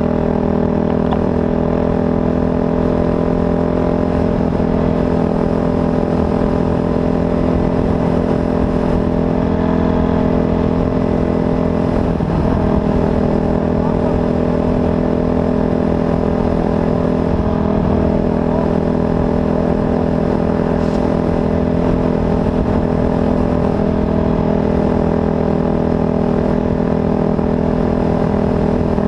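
Off-road race vehicle's engine running at a constant speed, its pitch holding level throughout with no revving up or down.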